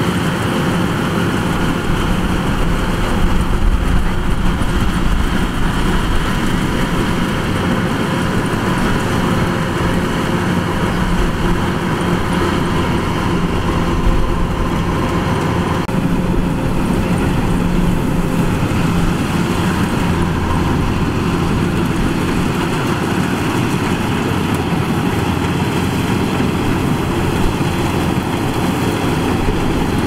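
Kubota DC-105X combine harvester working a rice crop, its diesel engine and threshing machinery running with a steady, loud mechanical drone. The tone shifts slightly about halfway through.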